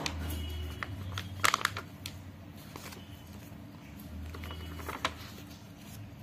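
Pages of a storybook being turned and smoothed down by hand: short paper rustles and flicks, the loudest about a second and a half in and another near five seconds in.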